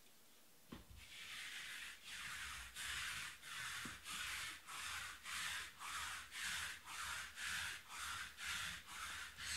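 A lint roller rolled back and forth over a felt table mat to pick up dust, a rasping stroke about twice a second, starting about a second in.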